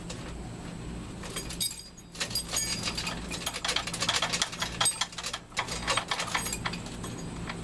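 Metal chain rattling and clinking as it is handled, in dense irregular jingles from about a second and a half in until near the end, over a steady low hum.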